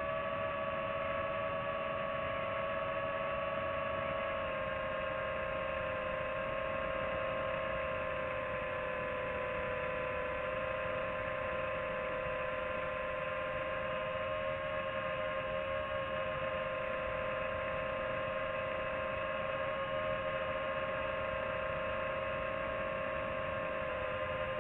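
FPV quadcopter's electric motors and propellers whining steadily, the pitch dropping slightly about four seconds in and drifting a little with the throttle.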